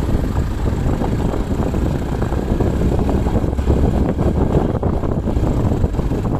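Motorcycle climbing a rough uphill dirt track, its engine running under load, with heavy wind buffeting on the microphone.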